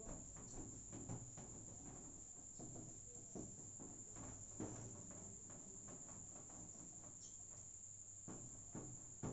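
Whiteboard eraser wiping the board in repeated short rubbing strokes, over a constant faint high-pitched whine.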